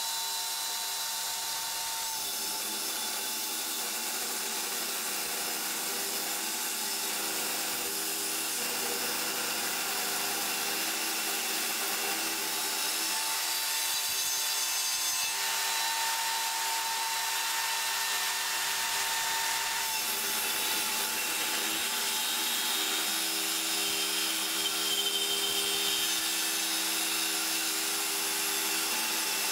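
Homemade table saw, a circular saw mounted beneath the table, running with a steady whine as its blade resaws a thick piece of spruce.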